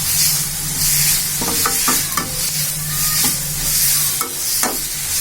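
Chopped tomatoes and onions sizzling in oil in a kadai while being stirred, with a scrape or knock against the pan at each stroke. A steady low hum runs underneath.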